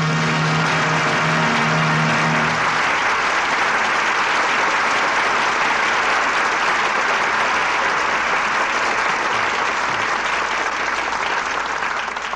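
Studio audience applauding steadily at the close of an act. The orchestra's final chord holds underneath for the first couple of seconds, then dies away. The applause fades near the end.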